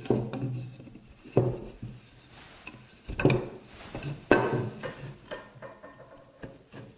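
Hardwood stool rails and legs being pushed together onto snug dowels in a dry fit: a series of wooden knocks, about four of them loud, with rubbing and scraping between them.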